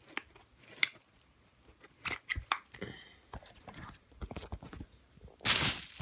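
Scattered clicks and light knocks of a steering-wheel quick-release hub and its packaging being handled, with a short louder rustle near the end.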